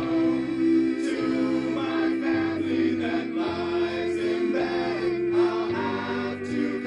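A song sung by several voices together over a loud held chord and a bass line that steps from note to note, with a few short sharp hits.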